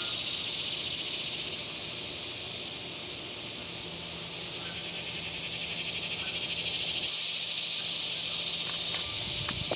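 Cicadas buzzing in a steady, high-pitched summer chorus, fading somewhat a couple of seconds in and building again.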